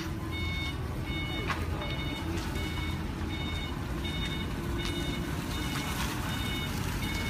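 Forklift warning beeper sounding a steady repeating beep, about three beeps every two seconds, over the low, steady running of the forklift.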